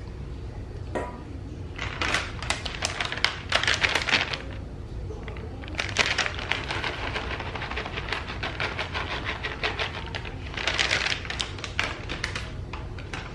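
Plastic bag of shredded cheese crinkling and crackling as it is shaken out over pasta in a slow cooker, in three spells of rapid crackle.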